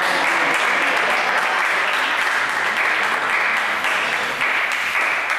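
Spectators applauding steadily, a dense patter of many hands clapping.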